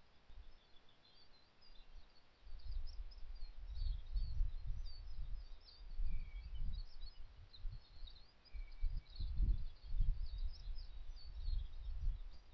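Small forest birds singing and chirping in high, thin notes throughout, over an uneven low rumble of wind buffeting the microphone that swells in gusts from about two seconds in.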